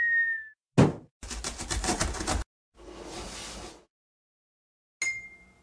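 Cartoon intro sound effects: a short high tone dies away about half a second in, then a sharp thump, a fast rattle of about ten clicks a second, a swish, and near the end a bright ding that rings and fades.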